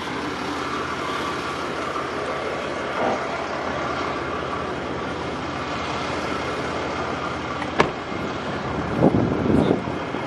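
Steady running of a nearby vehicle's engine with road traffic noise. A single sharp click comes about three-quarters of the way in, and a short louder burst of noise follows near the end.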